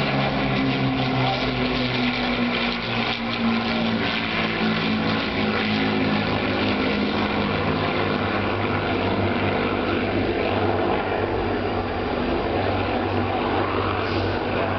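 Propeller-driven piston warbirds in a low formation flyby, the Lancaster bomber's four Rolls-Royce Merlin engines with a Spitfire and a Hurricane, making a steady drone whose pitch falls slowly as the formation passes.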